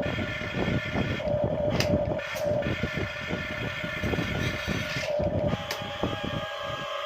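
Radio-controlled toy construction vehicle's electric motors and plastic gearboxes whining steadily, over a dense, rapid clatter. The higher whine cuts out briefly twice.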